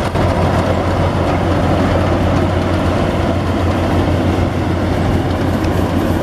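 Yanmar AW82V combine harvester running steadily under load, a loud continuous engine hum with dense machinery noise.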